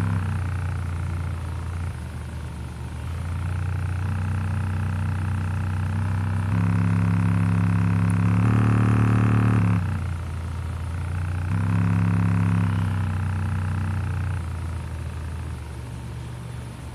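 Bare Aiwa 6.5-inch midbass driver in free air playing deep bass, a loud buzzing drone whose pitch steps between a few notes every second or two, fading near the end.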